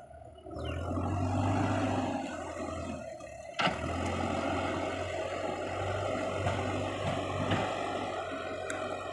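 Backhoe loader's diesel engine revving up about half a second in and then running steadily under load as the front bucket pushes soil. A single sharp clank sounds a few seconds in.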